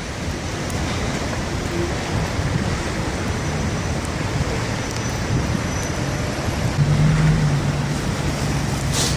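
Steady traffic noise from cars driving along a snow-covered city street, with a low engine hum louder about seven seconds in. A brief click near the end.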